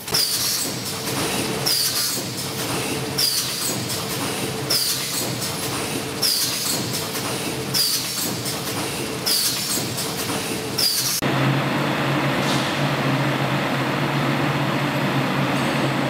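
Automatic stand-up pouch packing machine running: it cycles with a clatter and a short hiss about every one and a half seconds, about eight times. About eleven seconds in the sound switches abruptly to a steady machine hum.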